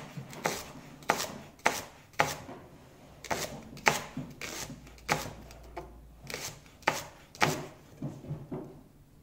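Chef's knife slicing a leek into rounds on a plastic cutting board: the blade knocks on the board about twice a second in a steady rhythm, stopping shortly before the end.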